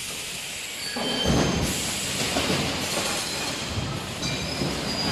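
A 3D EPS wire-mesh panel machine working: a heavy thump about a second in, then a hiss of compressed air and irregular mechanical knocks.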